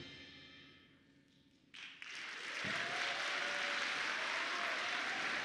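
The wind ensemble's last chord dies away. After a moment of silence, an audience starts applauding a little under two seconds in; the applause builds and then holds steady.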